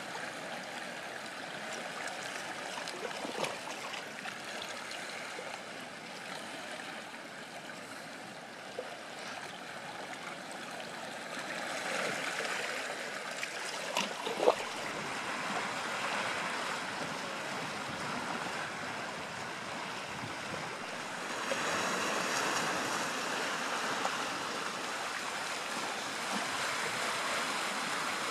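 Small sea waves washing and lapping among shoreline rocks, a steady rush of water that swells louder near the middle and again over the last quarter, with a sharp splash about halfway through.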